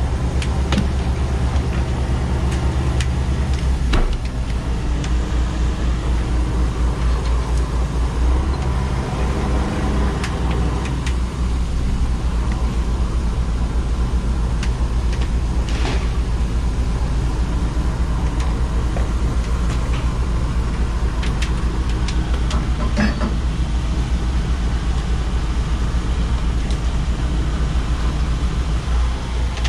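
Fishing boat's engine running steadily with a low, evenly pulsing rumble, with a few sharp knocks and clatter on deck as longline gear and halibut come aboard.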